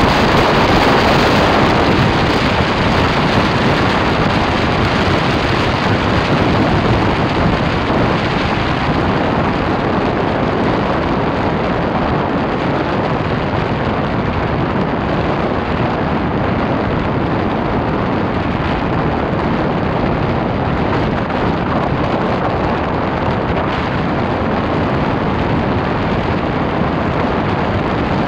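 Steady, loud rush of wind buffeting the microphone on a moving motorcycle, with road and engine noise blended in.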